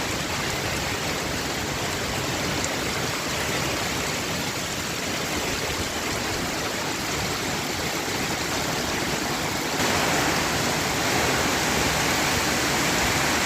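Heavy rain in strong wind, a steady rushing downpour that gets suddenly louder and brighter about ten seconds in.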